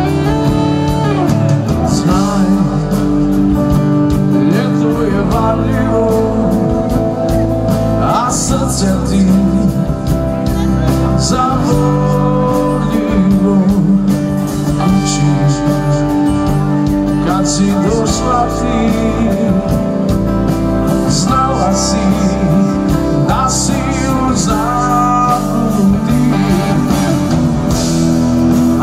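Live rock band playing a song: electric and acoustic guitars, bass guitar and drums, with a lead voice singing over them.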